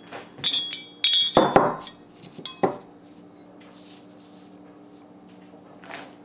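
Small steel pistol parts of a demilled PM-63 clinking against each other and on the work surface as they are handled. Several sharp clinks with a brief ring come in the first three seconds, then only a faint steady hum.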